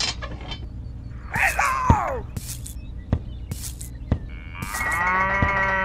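Cow mooing twice, a short falling moo about a second and a half in and a longer held moo near the end, with a few light clicks and taps between them.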